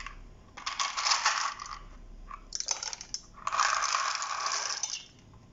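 Dry penne pasta rattling in a plastic tub as it is poured into a stainless steel pot of water, in three bursts of clattering, the longest near the end.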